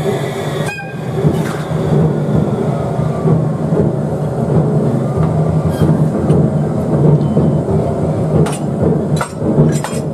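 EF63 electric locomotive pulling away slowly, its motors and blowers running with a steady low hum and rumble. A couple of sharp clicks sound near the end.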